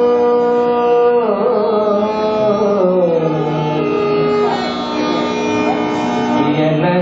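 Male Carnatic vocalist holding a long note, then singing slow gliding, ornamented phrases that wind downward, over a steady drone.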